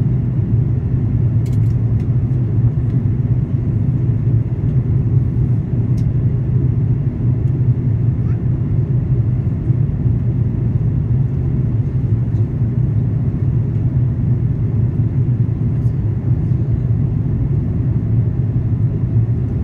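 Airbus A340-300 cabin noise in flight on approach: a steady low drone of airflow and the four CFM56 engines, with a few faint ticks.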